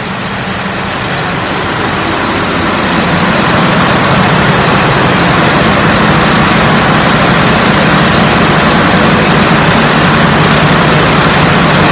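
Caterpillar marine diesel engines running in a ship's engine room: a loud, steady drone that grows louder over the first few seconds as the engines are approached.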